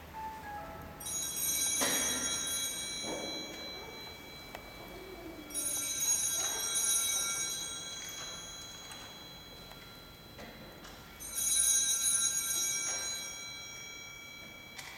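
Altar bells, a cluster of small bells with many high ringing tones, rung three times, each ring fading over a few seconds. This is the ringing that marks the blessing with the Blessed Sacrament in the monstrance at Benediction.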